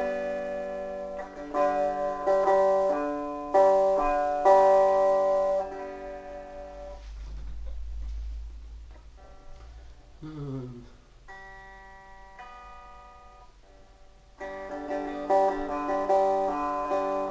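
Gibson EDS-1275 double-neck electric guitar played on its six-string neck: strummed chords, then a quieter stretch of single notes with a sliding note falling in pitch, then loud strumming again about fourteen seconds in.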